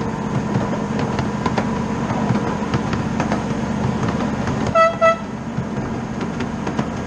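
Miniature ride-on railroad train running with a steady rumble and frequent clicks, its locomotive giving two short toots of the whistle about two-thirds of the way through.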